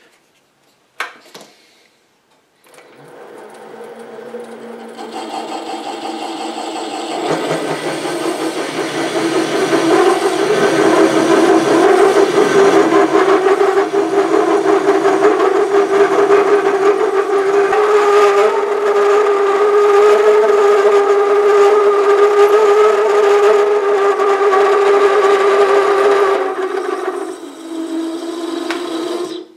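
SC2 mini lathe turning a 76 mm aluminium workpiece: the cut builds over several seconds into a loud, steady ringing tone with overtones, the chatter of the tool against the large-diameter work. About three seconds before the end the tone drops to a lower level, then cuts off as the lathe stops.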